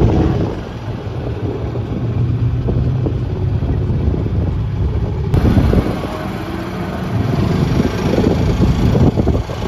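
Strong wind buffeting the microphone as an open golf cart drives along, over the cart's low, steady running hum. The sound shifts abruptly about five seconds in.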